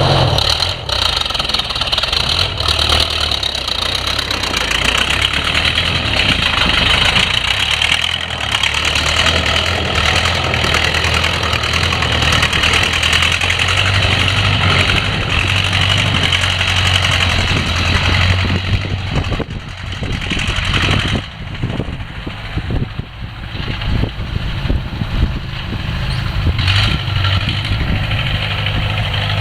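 Allis-Chalmers WD45 tractor engine running hard, steady for most of the time, easing off with a few sharp knocks about two-thirds of the way through, then picking up again.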